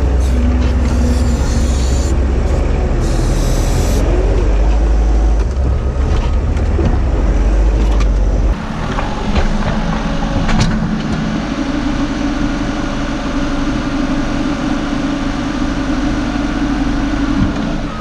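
Telehandler diesel engine working under load while its hydraulics drive a shear grab cutting and lifting silage, heard from inside the cab, with short bursts of hiss twice early on. About halfway through the deep engine drone drops away, giving way to a steadier, higher whine with a couple of sharp knocks.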